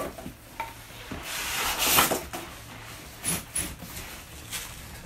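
Flat-pack desk panels sliding out of a cardboard box: a rasping scrape of board against cardboard that swells about a second in and peaks near two seconds, with a few light knocks as the panels settle on the floor.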